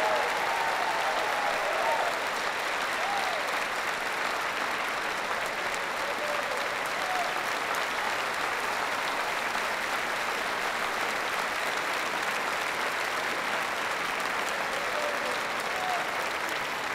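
Large congregation applauding steadily, with a few voices cheering over the clapping in the first couple of seconds and briefly here and there later.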